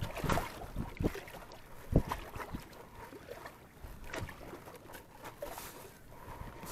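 Double-bladed paddles dipping into calm water beside an Intex K2 Explorer inflatable kayak, in irregular strokes and splashes, the sharpest about two seconds in, over a soft wash of water along the hull.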